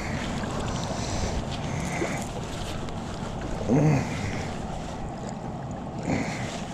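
Small waves lapping and washing up a sandy lakeshore, with wind buffeting the microphone. About four seconds in there is a brief, louder pitched sound that rises and falls.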